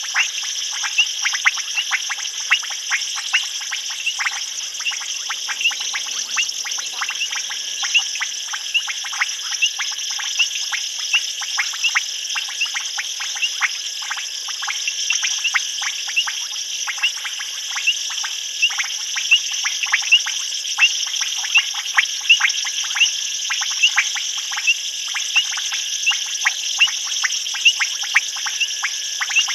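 Night chorus of frogs and insects: a steady high shrill trilling under many short, sharp clicking calls, two or three a second, which are the loudest sounds.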